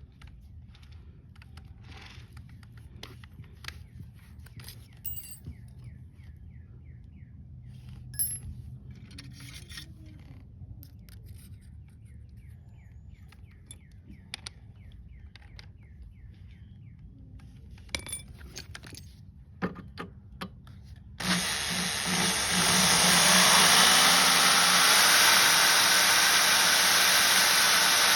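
A few scattered clicks and taps of tool handling, then about twenty seconds in a power drill starts and runs steadily with a loud whirring hiss, drilling out a broken mower wheel bolt with a left-handed bit.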